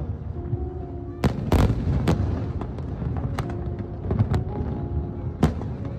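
Fireworks going off: about six sharp bangs of bursting shells, spaced irregularly, with a pair of loud ones about a second in and another loud bang near the end, each trailing a short echo over a steady low rumble.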